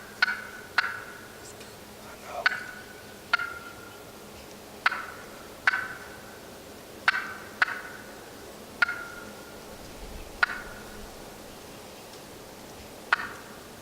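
Turkey cutting: about ten short, sharp clucking notes, each with a brief ringing tail, spaced irregularly about a second apart and some in quick pairs.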